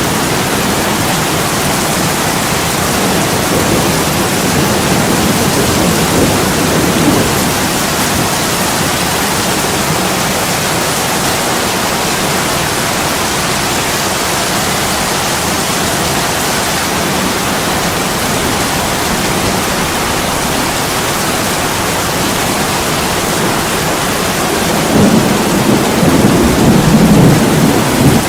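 Steady heavy rain on a window, with low rolling thunder swelling twice: once a few seconds in and more strongly near the end.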